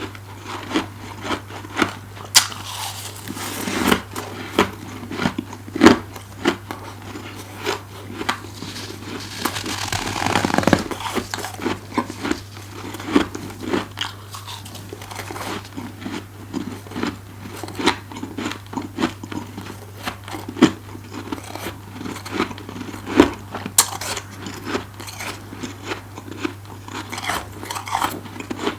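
Close-miked crunching of a person biting and chewing freezer frost: a string of sharp, crisp crunches about once or twice a second, with a longer grinding crunch around ten seconds in.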